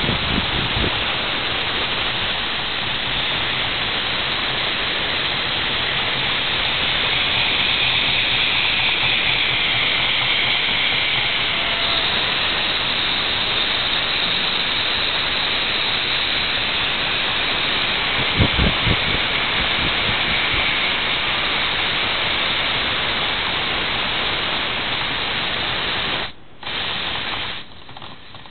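Lego pneumatic V-twin engine running on compressed air: a steady hiss of air through its valves and cylinders, with a few low knocks about two-thirds through. Near the end the hiss cuts off suddenly, comes back for a moment, and stops again.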